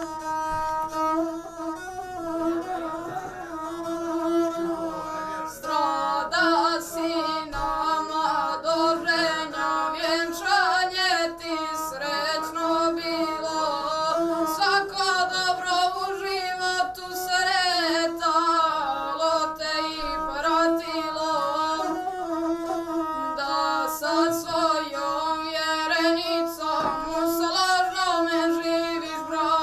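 A boy singing a zdravica, a toast song for newlyweds, to the gusle, a single-string bowed folk fiddle that drones along under the voice. The gusle plays alone at first, and the voice comes in about five seconds in.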